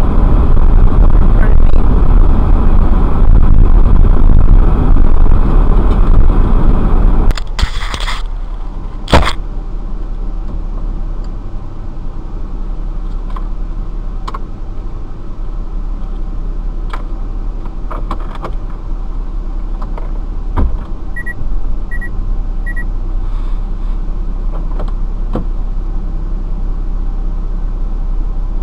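Road and engine noise inside a moving minivan's cabin, loud and steady, that cuts off suddenly about seven seconds in. A quieter steady hum follows, with a few sharp knocks and three short high beeps around the middle.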